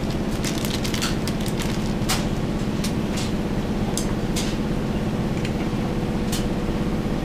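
Steady mechanical hum with a few light clicks and ticks scattered through it as small new rings are fitted by hand on top of a motorcycle engine.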